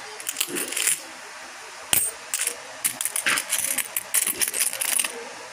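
A pile of metal coins clinking and jingling against one another as they are handled, with many quick, high clinks and a sharper click about two seconds in.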